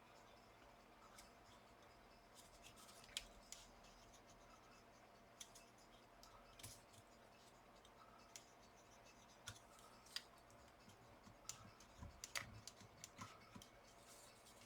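Faint, irregular small clicks and scratches of tools and fingers working at a laptop's internal parts, a little busier near the end.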